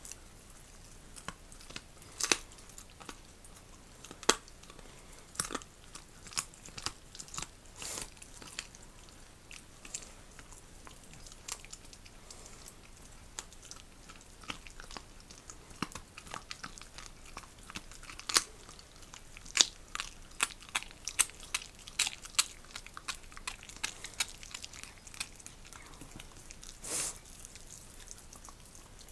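Jack Russell terrier chewing and biting a raw pig's trotter: irregular sharp crunches and clicks of teeth, coming thicker in the second half.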